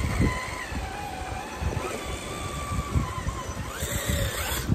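Small electric motor and gears of an RC rock crawler whining as it crawls over a concrete block, the pitch shifting with the throttle. A brief hiss near the end.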